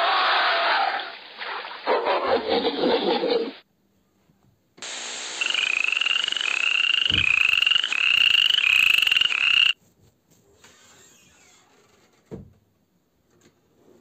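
Two animal sound clips, one after the other: first a gorilla's rough, noisy vocalisation in two bursts, then a toad calling in a run of short rising chirps, about two a second, over a steady hiss, which stops abruptly.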